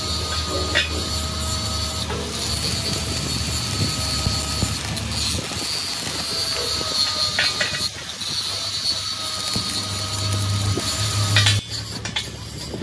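A machine running with a steady high whine over a low hum and a noisy rattle, with a few knocks along the way; near the end the whine stops.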